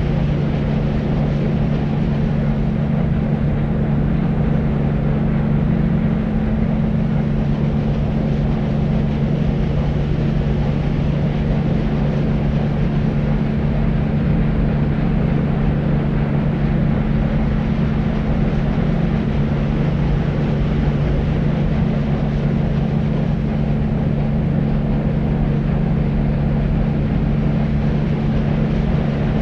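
Deep white noise for soothing babies to sleep: a steady, unchanging hiss heavily weighted to the low end, with a low hum running through it.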